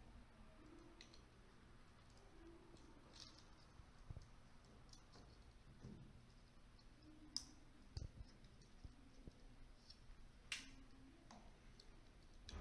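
Near silence with a few faint, sharp plastic clicks and taps, the sharpest about seven and ten and a half seconds in: a photoelectric smoke detector being wired and fitted to its ceiling mounting base.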